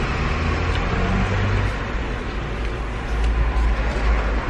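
Steady low rumble of a car heard from inside its cabin, with a few faint clicks.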